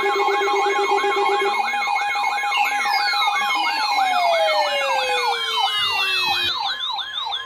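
Emergency alert tones layered together: a steady alarm tone under a fast warbling siren-like tone. A low pulsing buzz sounds for the first second and a half. From about three seconds in, several falling whistle-like glides join. Near the end the warble and glides cut off, leaving the steady tone.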